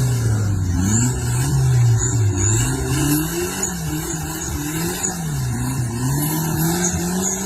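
Off-road 4x4 vehicle's engine revving up and down over and over, the throttle rising and falling every second or two under hard driving.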